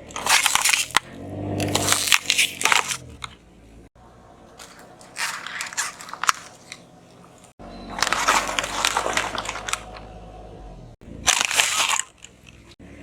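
Car tyres rolling over and crushing crunchy objects: five loud bursts of crunching and crackling, split by abrupt cuts, with the car's engine faintly underneath.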